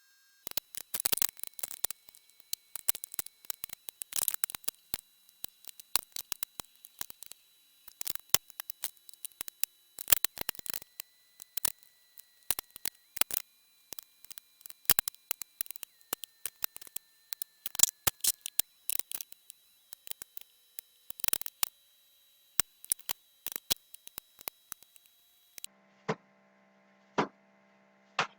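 Irregular clicks and knocks of tools and parts being handled while a supercharger is fitted to a 4.2 V8 engine. A steady electrical hum comes in near the end.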